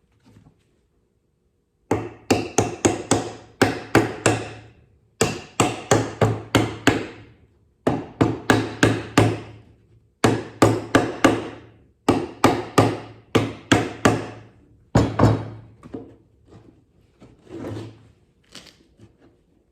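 Snap-on hammer driving nails into the wooden birdhouse: six runs of quick, sharp blows at about four a second, then a few lighter taps near the end.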